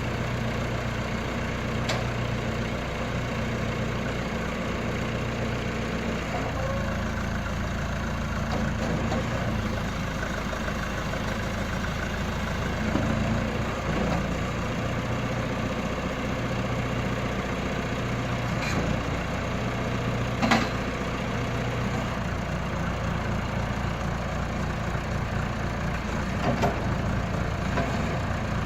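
John Deere 310A backhoe's engine running steadily at low speed, its pitch stepping slightly up and down now and then, with a few sharp clicks, the clearest about two-thirds of the way through.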